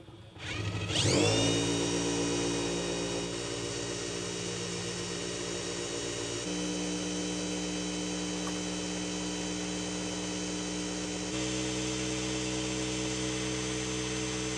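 Hercules HCB81B 20V brushless impact driver running flat out with no load, spinning a dyno's pulley and shaft: a whine that climbs as it spins up about a second in, then holds steady. The pitch steps slightly twice as the run switches to larger batteries, which give a little more RPM.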